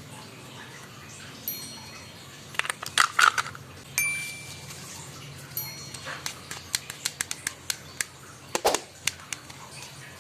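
Small hard toys clicking and clinking against each other, a run of quick taps with a few short, high ringing dings.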